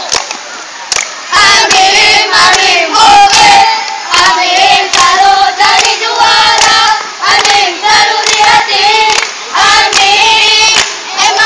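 A group of boy scouts chanting a troop yell (yel-yel) in unison, sung in short phrases on a few held notes, with sharp claps among the phrases.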